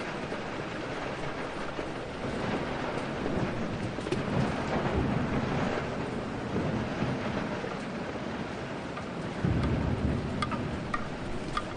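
Steady heavy rain with thunder: a long rolling rumble swells about two seconds in and fades. Near the end a sudden louder low rumble breaks in.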